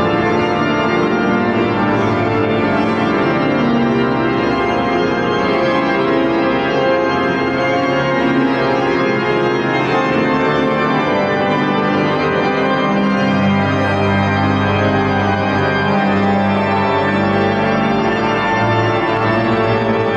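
Pipe organ playing slow, sustained chords inside a large Gothic cathedral; about two-thirds of the way through, a deep bass note comes in underneath.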